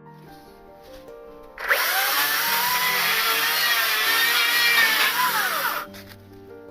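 A power tool cutting wood starts about two seconds in and runs for about four seconds, its whine wavering in pitch as it works and falling as it stops, over background music with a steady pulse.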